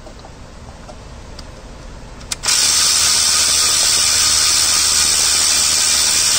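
Power ratchet running steadily, backing out a bolt. It starts abruptly about two and a half seconds in.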